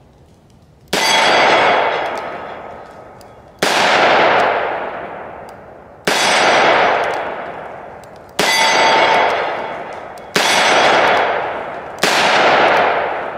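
Six .357 Magnum shots from a Taurus 692 Tracker revolver fired double action, a steady shot every two seconds or so. Each shot is followed by a long metallic clang that rings and fades over about two seconds.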